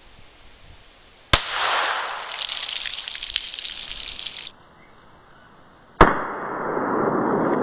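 Two sharp .22 Long Rifle pistol shots from a GSG 1911, about 1.3 s and 6 s in, each followed by a few seconds of splashing, gushing water from the struck milk jugs.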